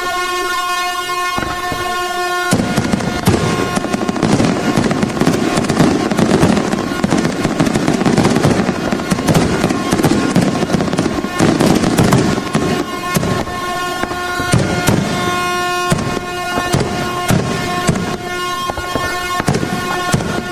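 Fireworks going off in a dense run of pops and crackles that thickens sharply about two and a half seconds in and thins out in the second half. Under them an air horn holds one steady tone throughout.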